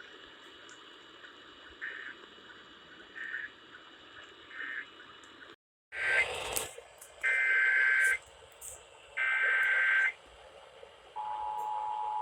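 Emergency Alert System broadcast: a low static hiss with a few faint beeps, then three loud, harsh data bursts of the SAME header, each about a second long, and a steady attention tone starting near the end, signalling that a new alert is coming.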